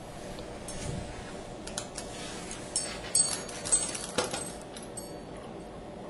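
Scattered sharp clicks and clinks over steady low background noise, bunched between about two and four and a half seconds in.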